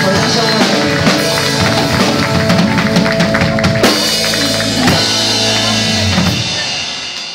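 Live rock band with electric guitars, bass guitar and drum kit playing the instrumental end of a song, the final chord ringing out and fading over the last second.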